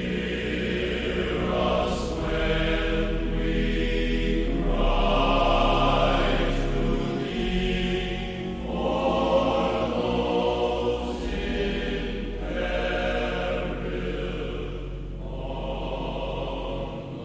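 Choral music: a choir singing long, sustained notes that swell and fade every couple of seconds over a steady low bass tone.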